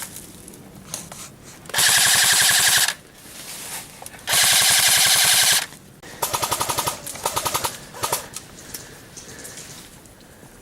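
Airsoft guns firing on full auto: two long bursts of about a second each, then a few shorter bursts.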